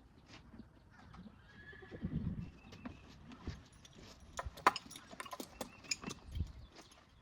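A horse standing for tacking up: a short low vocal sound from the horse about two seconds in, then a run of sharp clicks and knocks from its hooves and the tack.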